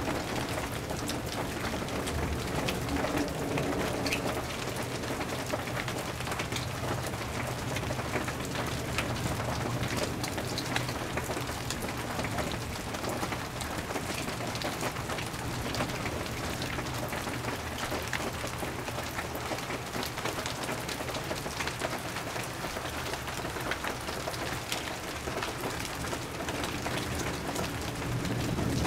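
Rain falling steadily during a thunderstorm, many individual drops striking hard surfaces, with a steady low hum underneath.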